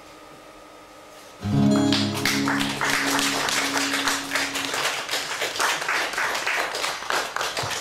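A strummed acoustic guitar chord about a second and a half in, ringing for a few seconds, with audience applause starting just after it and carrying on to the end.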